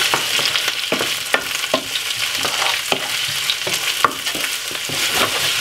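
Sliced sweet peppers, onion and carrot sizzling in olive oil in a frying pan while a wooden spoon stirs them, with a steady hiss and irregular clicks and scrapes of the spoon against the pan.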